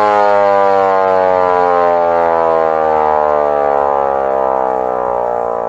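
LK-145 electric motor siren growling: a low, loud wail that falls slowly in pitch and fades a little as the dual rotors slow down.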